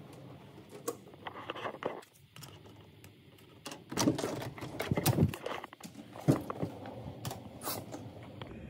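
Hotel room door being unlocked with a key card and opened: clicks and clatter from the card-key lock and lever handle, loudest in a cluster about four to five and a half seconds in, with a sharp click a little after six seconds.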